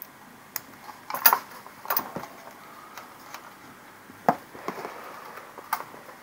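Small plastic and metal parts clicking and knocking as chandelier wiring and connectors are handled: a handful of sharp, irregular clicks, the loudest about a second in and about four seconds in.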